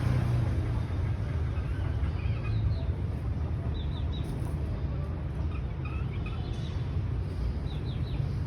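Harley-Davidson Sportster S's Revolution Max 1250T V-twin running steadily at a low, even idle through aftermarket Cannon exhaust pipes. Faint bird calls chirp over it.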